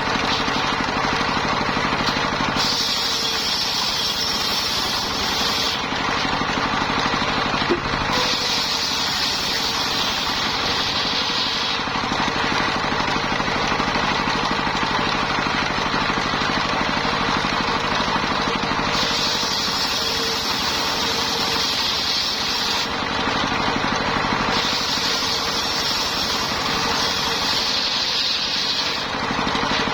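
Engine-driven mobile circular sawmill running steadily as it saws lamtoro logs, with a high cutting whine that comes and goes several times as the blade passes through the wood.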